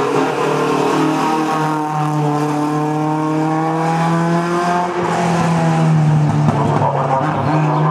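Historic saloon race car's engine held at high revs under full throttle as it accelerates past up the hillclimb course. The note dips briefly about five seconds in.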